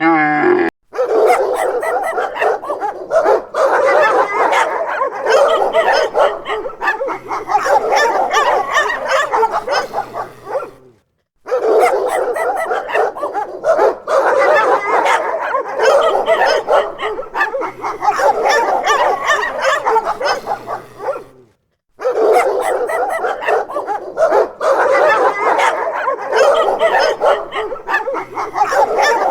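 Dogs barking and yipping in a dense, continuous stretch, broken twice by brief silences into three parts of about ten seconds each.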